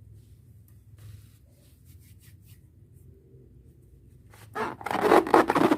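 Faint rubbing and handling of a rubber balloon, then about four and a half seconds in a loud, rough noise with a wavering pitch as air is let out through the balloon's stretched neck.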